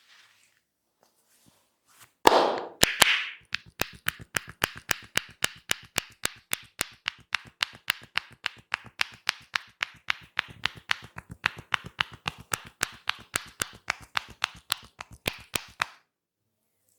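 Rapid percussive tapping of massage hands on a person's head or shoulders, an even run of about five sharp taps a second that stops suddenly near the end. A louder, rougher burst comes first, about two seconds in.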